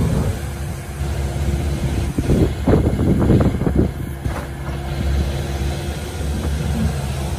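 Kubota KX080-4 excavator's four-cylinder diesel engine running steadily under hydraulic load as the boom and bucket are worked. A burst of irregular clattering comes about a third of the way in and lasts around a second and a half.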